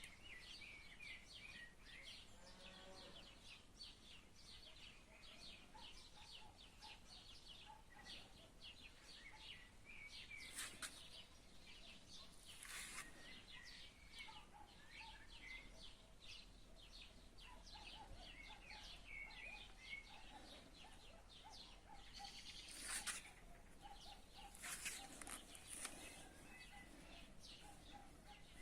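Faint songbirds chirping and singing, many short overlapping notes throughout, with a few louder sharp sounds about a third of the way in and again later.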